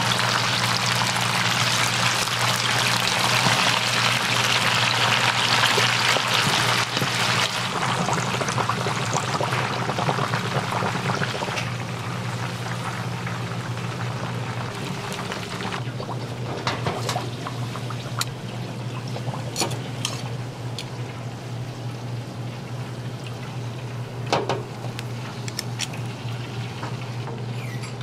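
Hot oil sizzling and bubbling around a whole raw bird fried in a wide pan with dried chillies and scallions, loudest for the first several seconds and then settling to a quieter steady sizzle. In the second half, a few sharp clicks of metal tongs against the pan, over a steady low hum.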